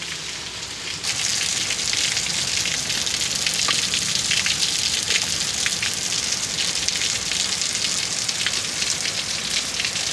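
Heavy rain falling steadily, a dense hiss of drops that turns louder and brighter about a second in.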